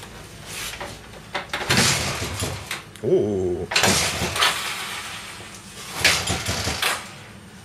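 Honda CM 185T twin-cylinder engine being kicked over and catching briefly, three rough, crackling bursts of about a second each that die away again.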